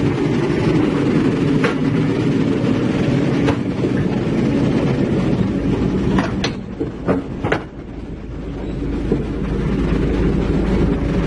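Heavy diesel construction machinery running under load, with sharp metallic clanks and knocks scattered through the rumble, typical of steel tracks moving. The rumble eases briefly about two-thirds of the way through, then builds again.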